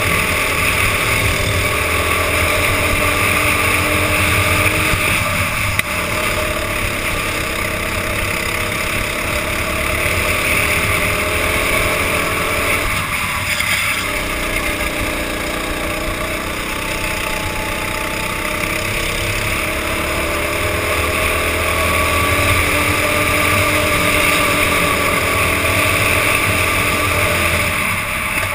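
Racing kart engine running hard at speed, its pitch rising and falling continuously as the driver works the throttle through the lap, dropping off sharply twice, about six and thirteen seconds in. Heard from a helmet camera on the driver.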